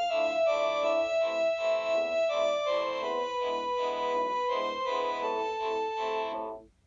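A Panasonic KX-TGH720 cordless phone plays one of its built-in ringtones: an electronic melody of short, repeating notes with chords. The melody cuts off suddenly near the end.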